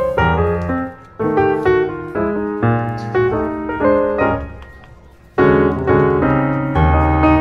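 Background piano music: chords and melody notes that ring and decay, fading away about five seconds in before a louder new phrase begins.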